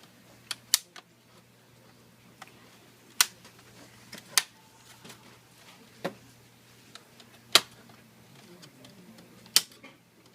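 Plastic retaining clips of a Samsung NP300E5C laptop's case popping loose as the case is pried apart: sharp, separate clicks every second or two at an uneven pace.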